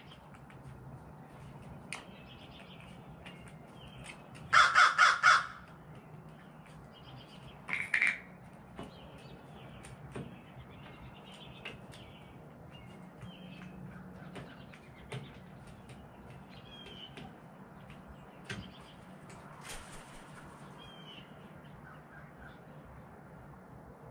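Crow cawing: a quick run of four loud caws about five seconds in.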